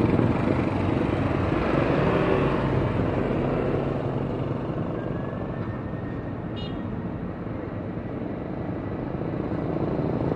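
Boeing 737 jet airliner's engines running at taxi power: a steady rushing noise with a faint whine that eases off towards the middle and grows again near the end as the aircraft taxis past.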